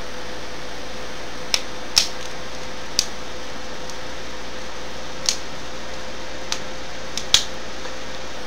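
Plastic casing of a Pantech phone being snapped back together: about seven sharp clicks at irregular intervals, the loudest near the end, over a steady hiss with a faint hum.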